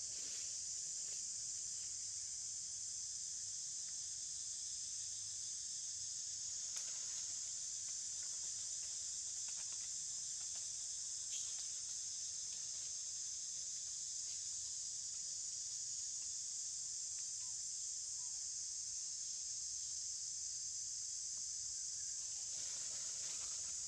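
Steady high-pitched drone of an insect chorus, unbroken and even throughout.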